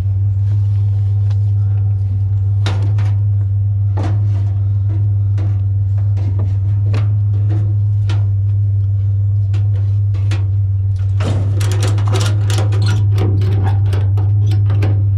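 Steady low drone of a truck's engine and road noise, with scattered clicks and knocks. A denser run of rattling starts about two-thirds of the way in.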